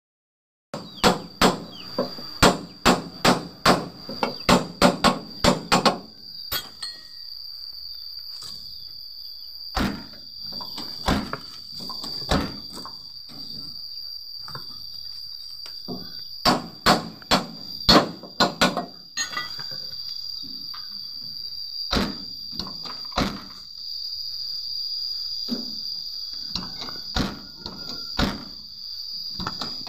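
Hammer blows on steel at a car door hinge during a hinge-bushing replacement: a quick run of a dozen or so strikes in the first few seconds, then scattered groups of blows. A steady high insect chirr runs underneath.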